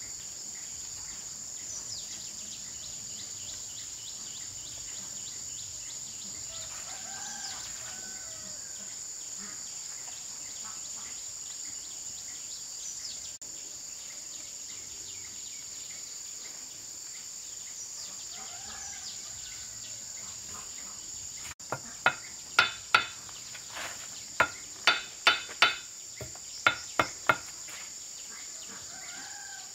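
Steady high-pitched drone of insects, with a rooster crowing faintly twice. About three-quarters of the way in, about ten sharp knocks in quick, uneven groups, much louder than the rest.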